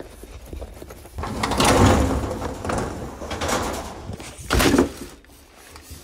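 A door sliding open with a long rattling scrape lasting about three seconds, then a single loud bang.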